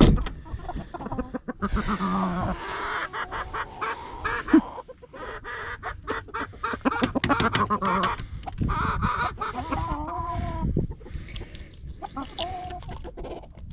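Chickens clucking, with many short clicks and knocks mixed in.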